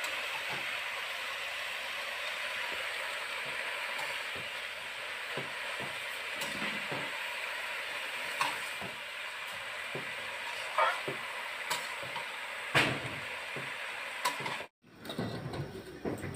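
Bottle gourd greens frying in a metal pan with a steady sizzle, while a spatula stirs and scrapes against the pan several times in the second half. The sizzle cuts off abruptly near the end.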